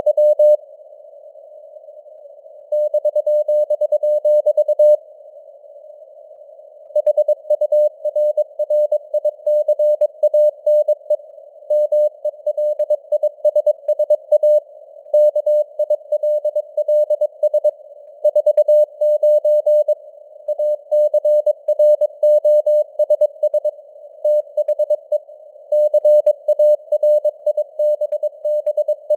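Morse code at 22 words per minute: a single tone keyed rapidly on and off, with simulated radio hiss beneath it and signal strength that fades (QSB). The sending pauses twice for about two seconds near the start.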